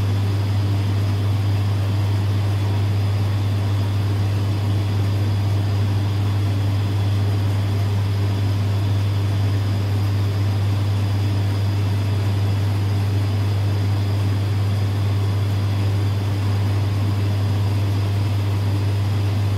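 Ventilation fan running: a steady, loud low hum with an even hiss over it that does not change.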